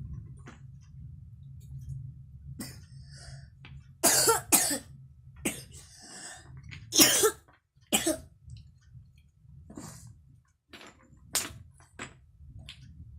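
A young child with a cold coughing in short loud fits: two coughs in quick succession about four seconds in, then again around seven and eight seconds. Sharp clicks of wooden toy blocks knocking together come in between, over a steady low hum.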